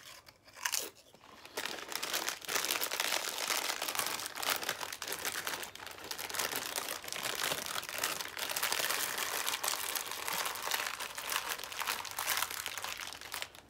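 Crinkly plastic snack bag being handled, a near-continuous crackle of rustling that goes on for most of the time, with a brief crunch of a chip being bitten about half a second in.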